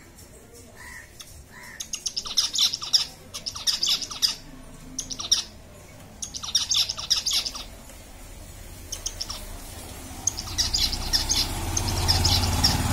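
Small caged finches chirping in quick runs of short, high notes, several runs in a row. A low hum builds near the end.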